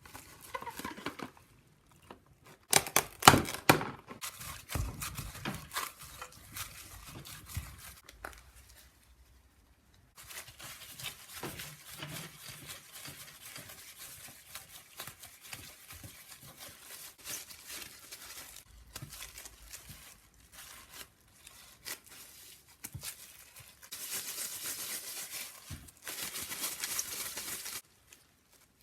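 Kitchen handling sounds while making daifuku: rustling and crinkling, like packaging or wrap being handled. A cluster of sharp knocks comes about three seconds in, and a louder, brighter rustle comes near the end, stopping abruptly.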